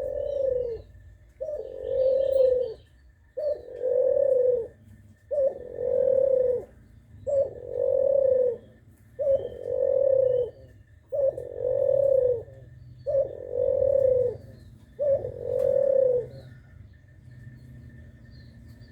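Spotted dove (tekukur) cooing repeatedly: nine similar calls about two seconds apart, each a short note running into a longer coo. The calling stops near the end.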